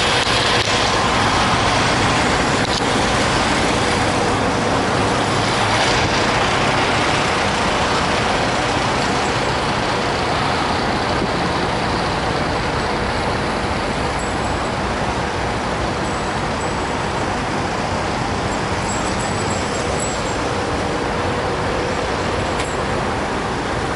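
Steady noise of vehicle engines and traffic around a truck-stop lot, with a faint steady tone running through it.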